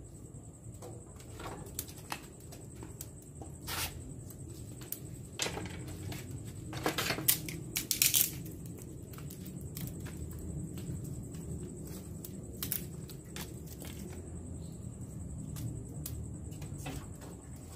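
Dry twigs snapping by hand and clattering into an offset smoker's steel side firebox: scattered sharp cracks, with a quick run of loud snaps about seven to eight seconds in, over a steady low rumble.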